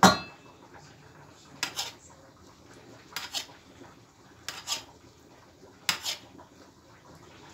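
Metal spoon scraping against the side of a round metal baking tray: a sharp clink at the start, then four short scrapes about a second and a half apart.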